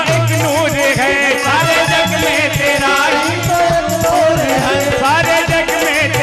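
Live Hindi song: a man singing into a microphone with harmonium accompaniment, a hand drum beating a steady rhythm and a shaken rattle.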